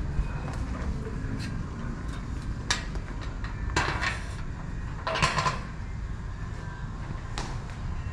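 About half a dozen irregularly spaced knocks and clicks over a steady low rumble, the longest two clattering for a fraction of a second about four and five seconds in.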